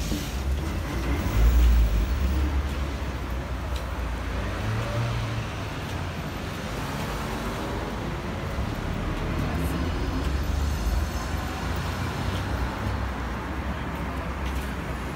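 City street traffic: cars driving past with a steady low rumble of engines and tyres, loudest about a second and a half in.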